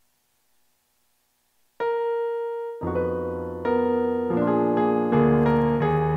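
Piano music opening a hymn accompaniment: near silence for nearly two seconds, then a single held note, then slow chords with a bass line from about three seconds in, changing roughly once a second.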